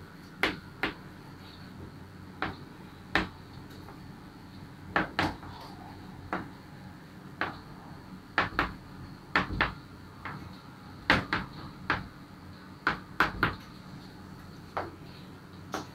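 Chalk tapping against a blackboard while words are written: a string of short, sharp clicks at an uneven pace, roughly one or two a second.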